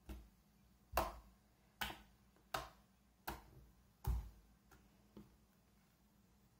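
Slime being pressed and worked by hand, giving sharp pops and clicks: six loud ones about every three-quarters of a second, then two fainter ones.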